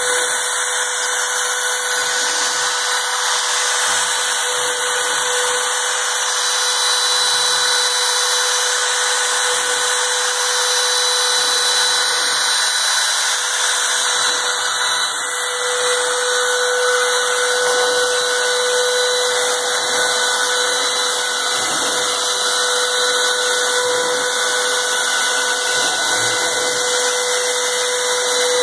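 Spindle motor of a homemade CNC machine running steadily with a constant whine as it traces a cut into a board.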